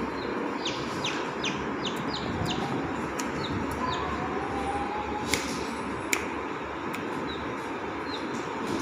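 Chick peeping: short, high, falling peeps, a quick run of them in the first couple of seconds and then scattered ones, over a steady background hiss. Two sharp clicks come midway.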